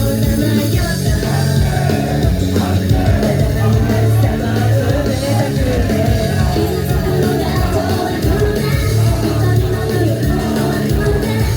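Live idol-group song played loud through a venue sound system: singing over a backing track with heavy bass.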